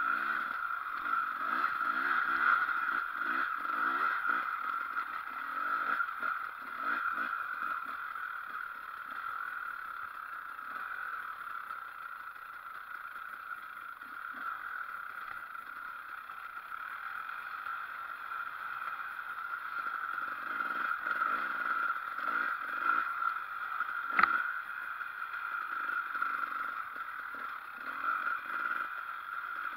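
Enduro motorcycle engine running as it is ridden along a rough woodland trail, heard from onboard, its level rising and falling with the throttle and terrain. A single sharp knock about three-quarters of the way through.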